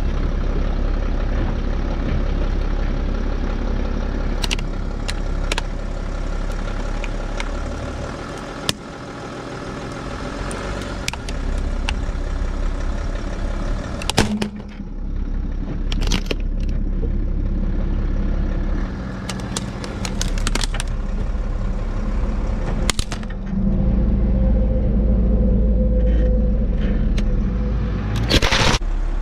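BMW car's engine running at a slow crawl while its tyre bears down on a laptop, with repeated sharp cracks and snaps as the laptop's case gives way. The loudest burst of cracking comes near the end.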